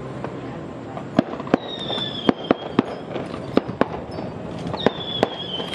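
Fireworks going off: a string of irregular sharp bangs, about a dozen, with two long whistles that fall slightly in pitch, the first about a second and a half in and the second near the end.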